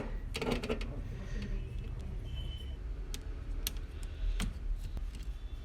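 Small clicks and taps of hands handling laptop parts and tools during an SSD swap: a quick cluster of clicks about half a second in, then scattered single sharp ticks, with a brief faint high tone a little after two seconds.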